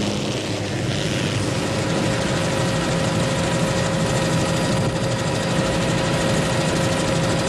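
Helicopter in flight: a steady rotor and engine drone with a constant whine over it.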